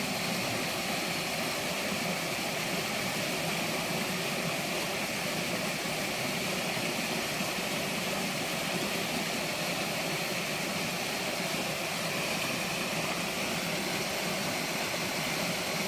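River water rushing over a shallow rapid: a steady, unbroken wash of noise.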